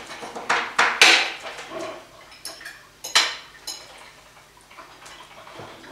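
Knife and fork clinking and scraping on a ceramic plate: a quick run of sharp clinks in the first second, another loud clink a little after three seconds in, and lighter taps between.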